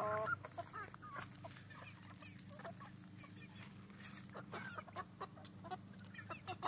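Three-month-old chickens clucking and peeping softly, short calls scattered throughout, with one longer call right at the start.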